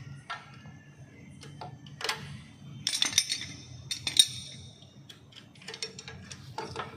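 Sharp metallic clinks and taps of small steel brake hardware and hand tools being handled on a concrete floor and at the drum brake backing plate. A few scattered clicks come first, then a cluster about three seconds in, and the loudest ringing clink about four seconds in.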